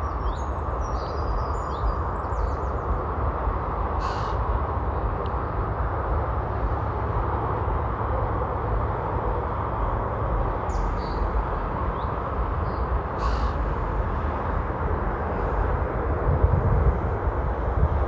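Wind buffeting the microphone over a steady outdoor hiss. A few short, high bird calls come near the start and again about halfway through.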